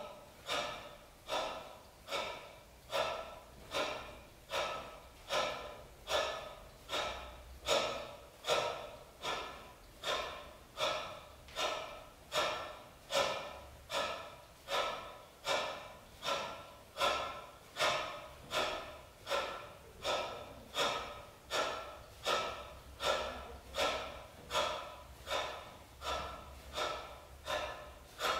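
A man breathing in sharp, forceful gasps at a steady pace, about three every two seconds, each breath starting abruptly and fading away.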